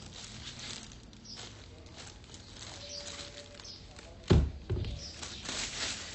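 Handling noise and plastic rustling as the Eggel Terra 3+ cylindrical Bluetooth speaker is turned in the hands. About four seconds in, the speaker is set down upright on a wooden desk with a loud thunk, followed by a smaller knock.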